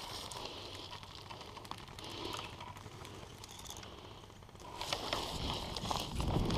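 Dry grass and brush crackling and rustling against clothing and gear, faint at first, then louder and busier from about five seconds in as the body shifts.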